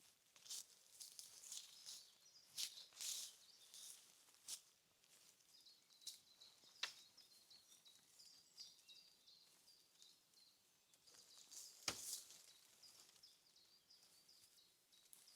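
Quiet forest sounds: scattered faint clicks and rustles, with a sharper knock about twelve seconds in, while a small bird chirps short high notes in the background.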